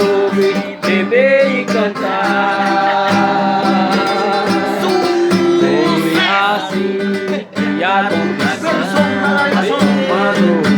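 A man singing to a strummed acoustic guitar, with several long held notes.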